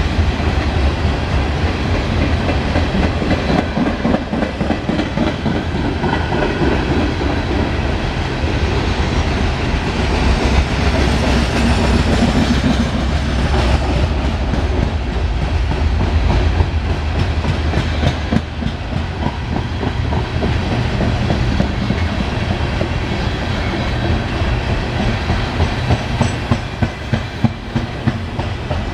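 Loaded coal hopper cars of a freight train rolling past: a steady rumble of steel wheels on rail with clickety-clack over the rail joints. The clacks stand out more sharply near the end.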